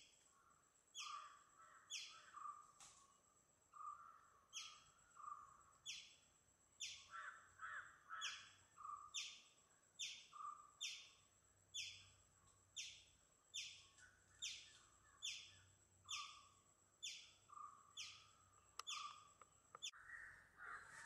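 A small bird repeats a short, high, falling chirp a little more than once a second, with lower calls of other birds underneath.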